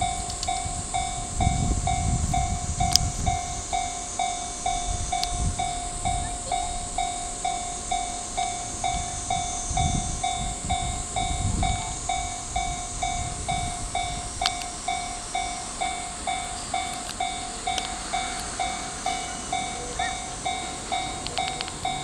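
Japanese railway level-crossing warning bell ringing steadily, an even ding about twice a second, while the crossing is closed for an approaching train. Gusts of low rumble come and go underneath, strongest at the start.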